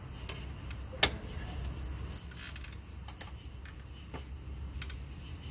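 Scattered light metallic clicks and clinks of tools and hardware being handled on a jet pump's reverse bucket linkage, with one sharp knock about a second in, over a low steady hum.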